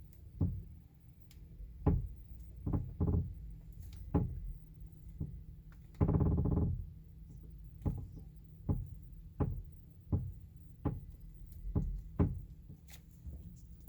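2018 Chevrolet Bolt creaking repeatedly: a series of short creaks and knocks at uneven intervals, with one longer drawn-out creak about six seconds in. The noise persists after the stabilizer bar and right stabilizer link were replaced.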